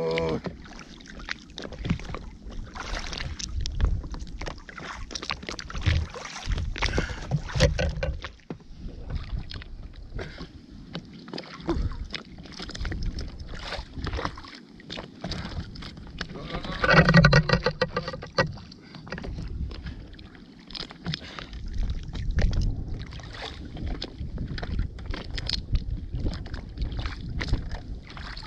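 Wind buffeting the microphone over open water, with frequent small knocks and clicks from fishing gear and a fish being handled in an inflatable boat. A short voiced cry stands out about two-thirds of the way through.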